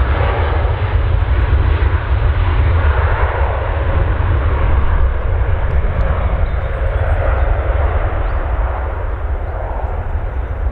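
Boeing 787-9 twin jet engines at takeoff power as the airliner departs: a steady loud rumble and roar that eases slightly near the end.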